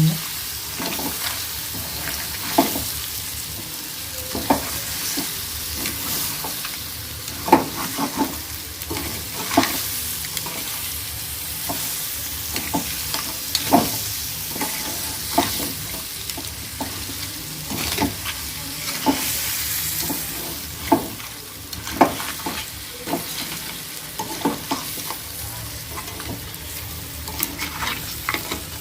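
Crabs frying in spiced oil in a kadai, a steady sizzle with irregular sharp knocks and scrapes of a spatula against the pan every second or two as the mixture is stirred.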